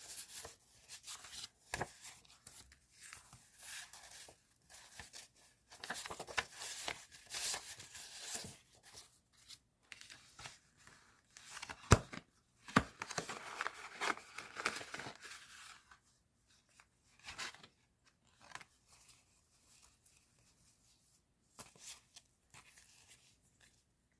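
Paper and plastic stationery packaging being handled: irregular rustling, crinkling and tearing with a few sharp clicks, the loudest about halfway through, growing sparser and fainter in the last third.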